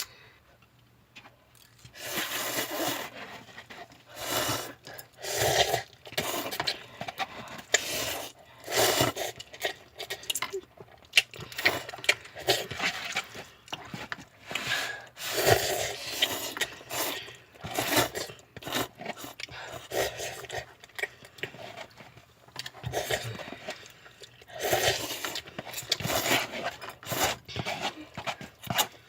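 Ramen noodles being slurped over and over, one short noisy slurp after another about every second, with quieter pauses between.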